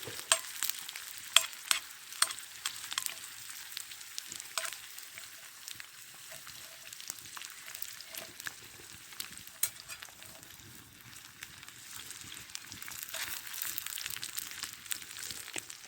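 Potatoes frying in hot oil in a cast-iron skillet over a campfire: a steady sizzle with sharp pops and spits, most frequent in the first few seconds and sparser after.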